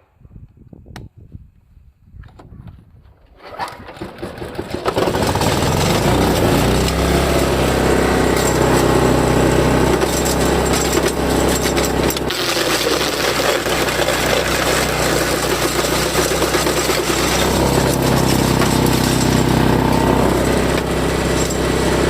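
Honko HK30S1 wood chipper's engine starting up about four seconds in after a few quieter knocks, then running loud and steady.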